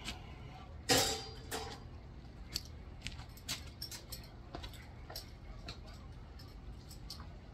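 Metal tools and parts being handled and set down: one loud ringing clank about a second in, then a string of lighter clicks and taps over a low steady hum.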